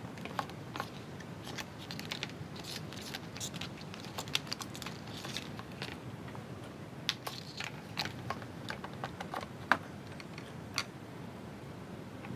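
Plastic electric-fan parts being handled and fitted together: scattered light clicks and knocks of hard plastic, the sharpest a little under ten seconds in.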